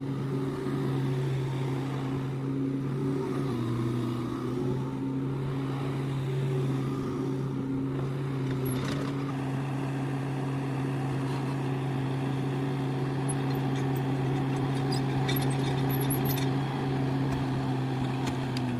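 Heavy diesel engine of a mining machine running steadily at a constant speed, with a few light clicks about halfway through and again near the end.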